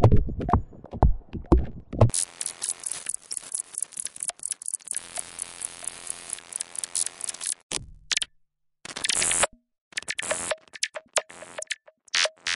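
Machinery sound effect: heavy low thumps for about two seconds, then a dense run of rapid clicks over a hiss, then stop-start bursts of clicks broken by short silences.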